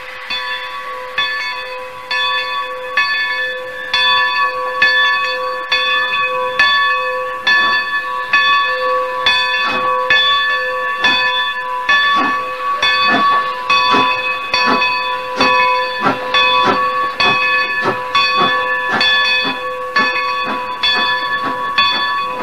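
Steam locomotive's bell ringing in a steady rhythm over the hiss of escaping steam, with exhaust chuffs that come quicker in the second half as the engine gets under way.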